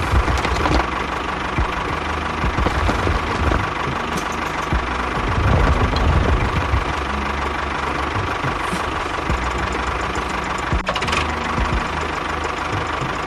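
Engine running steadily with a rough, knocking idle.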